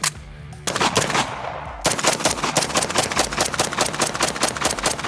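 MP5 submachine gun firing: one shot at the very start, a short burst under a second later, then a long string of rapid shots from about two seconds in.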